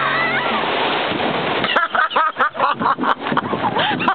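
Motorboat towing run with wind rushing over the microphone and water spray. About two seconds in, people's voices break in with rapid shouting as the banana boat riders are thrown into the sea.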